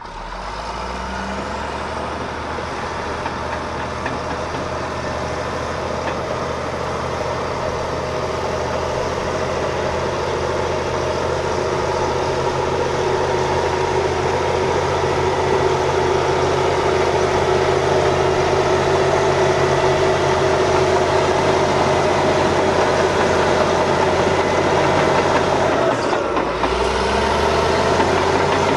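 Caterpillar D7H bulldozer's six-cylinder diesel engine running steadily. It grows slowly louder, with a brief dip in the sound near the end before it picks back up.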